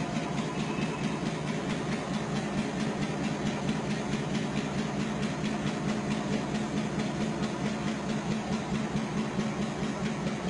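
Locomotive engine idling, a steady low drone with a fast, even pulse.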